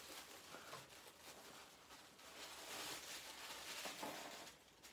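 Faint rustling of a shirt and its packaging being handled, otherwise near silence.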